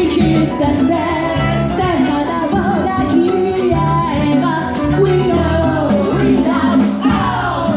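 Live salsa band playing a salsa arrangement, with singing over a steady bass line and percussion.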